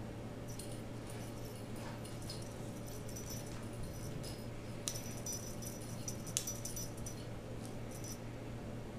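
Cat wand toy with feathers and streamers being waved and batted by a kitten: scattered light ticks and rustles, busiest about five seconds in, over a steady low hum.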